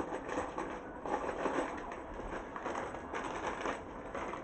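Pigeons cooing in the background, with bursts of rustling about a second in and again past the middle as packaged goods are handled.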